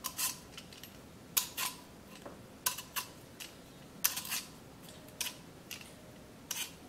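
Vegetable peeler scraping the skin off a raw lotus root in short, quick strokes, about one a second.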